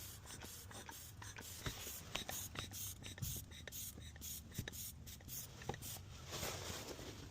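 Small metal tool working inside a door lock cylinder: irregular light clicks and scratchy scraping, with a longer stretch of scraping near the end.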